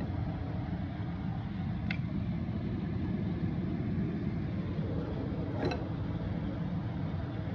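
Steady low rumble of background noise, with two light clinks of a serving spoon against a glass bowl as rice is scooped out, about two seconds in and again near six seconds.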